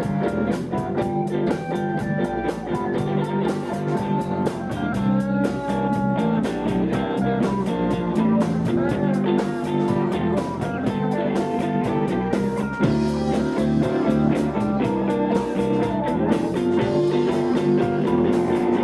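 Live blues band playing an instrumental passage without vocals: electric guitars over electric bass and a drum kit with cymbals keeping a steady beat.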